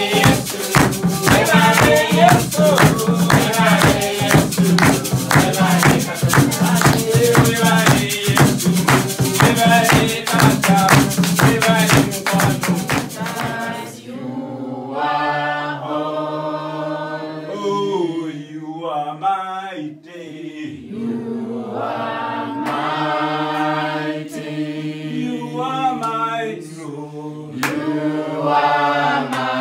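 A church congregation singing a worship song together, with hand percussion keeping a fast beat. About halfway through, the beat stops and the voices carry on unaccompanied.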